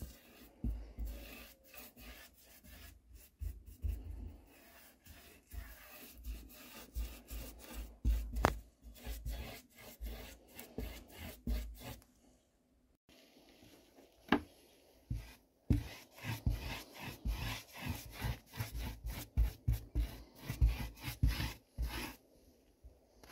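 Paintbrush scrubbing acrylic paint onto cork track underlay on a wooden baseboard: quick, irregular scraping strokes with soft knocks, pausing briefly about halfway through.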